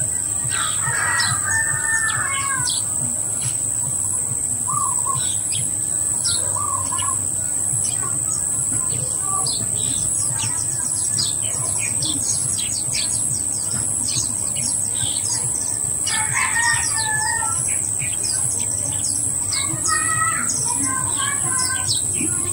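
Roosters crowing three times, about a second in, about sixteen seconds in and near the end, over steady chirping of small birds and a constant high-pitched insect drone.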